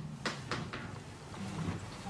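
Three light taps or clicks in quick succession within the first second, over faint room noise.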